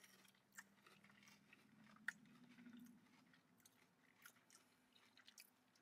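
Faint biting and chewing of breaded vegan mozzarella sticks: scattered small clicks of the mouth and crust, with one sharper click about two seconds in.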